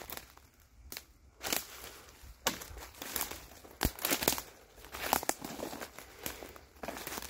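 Footsteps crunching and rustling through dry fallen leaves and brush, in uneven steps.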